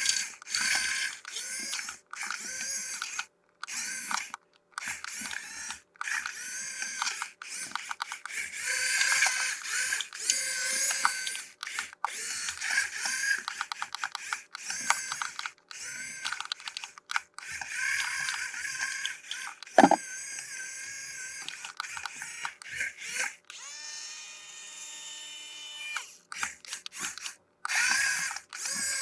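Toy packaging and plastic RC car parts being handled and unwrapped: crackling, rustling and clicking in short clips with abrupt cuts between them, and one sharp knock a little before the two-thirds mark. A steady whine lasts for a few seconds near the end.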